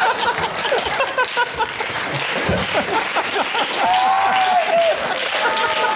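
Studio audience applause with laughter: dense, steady clapping, with laughing voices rising over it from about four seconds in.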